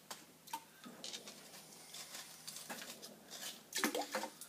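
Faint, irregular taps and scraping as gloved hands knock the corrosion crust off a 20-pound Parrott artillery shell; the crust, loosened by a day of electrolysis, falls away in hunks.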